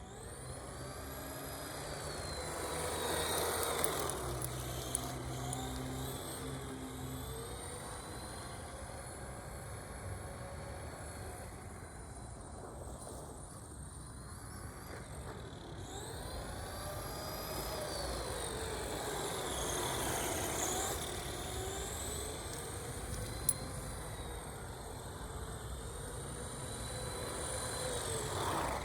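Electric RC car's motor whining, its pitch rising and falling as the car speeds up and slows down, in two main swells about 4 and 19 seconds in. There is one sharp tick near the end.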